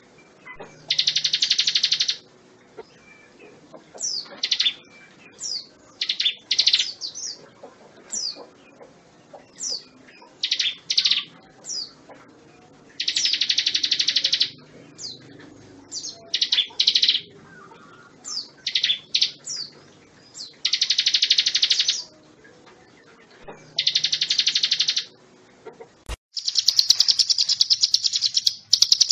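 Ciblek gunung (hill prinia) singing: long buzzing trills of about two seconds each, alternating with clusters of short, sharp, falling notes. Near the end there is a click, then a louder, brighter trill.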